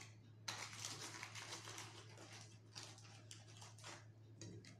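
Faint rustling and crinkling of the paper wrapper lining a lunch box as hands handle sandwiches, in a dense run of small crackles for about three and a half seconds, over a steady low hum.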